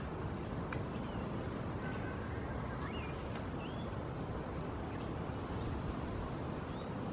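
Outdoor farmyard background: a steady low rumble with a few faint, short high chirps about two to four seconds in.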